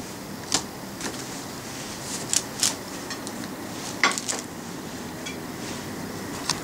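Scattered sharp clicks and light rustles of a nylon pop-up pet play tunnel as a kitten scrambles about in it, the loudest about four seconds in.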